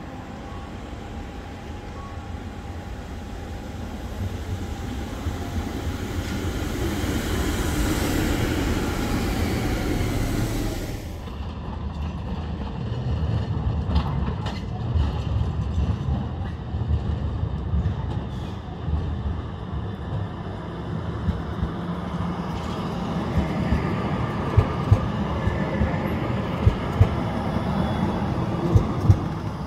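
Low-floor trams running on rails: one approaches, growing louder, and is cut off abruptly about eleven seconds in; then another approaches with a low rumble and passes close, its wheels giving several sharp clacks on the track near the end.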